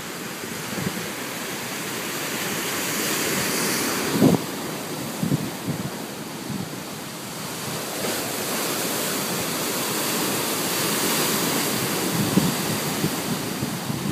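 Ocean surf breaking and churning against a rocky shore, a continuous rush that swells twice as the larger waves come in, with wind buffeting the microphone.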